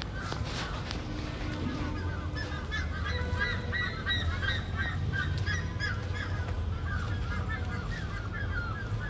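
Birds calling in the background: many short, rapid calls overlapping throughout, over a steady low hum.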